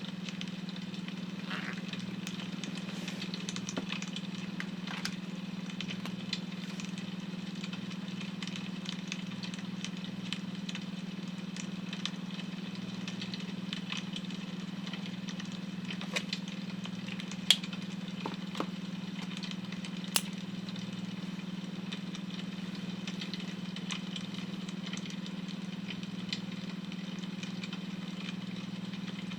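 Wood fire crackling with scattered sharp pops, the loudest a little past the middle, over a steady low drone of a beta-wave tone.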